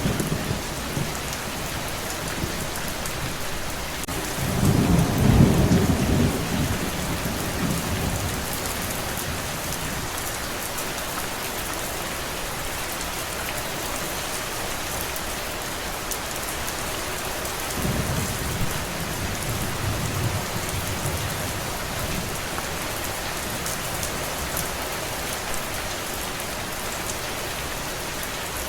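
Steady rain falling, with two low rolls of thunder: a louder one about five seconds in, lasting a few seconds, and a softer one about two-thirds of the way through.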